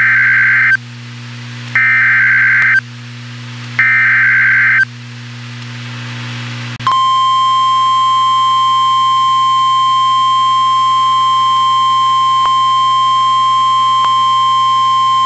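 Emergency Alert System weather radio alert: three short bursts of SAME header data tones, each about a second long and about a second apart, then after a short gap a single steady tone near 1 kHz (the weather radio warning alarm tone) that holds for about eight seconds. The tones announce a newly issued severe thunderstorm warning.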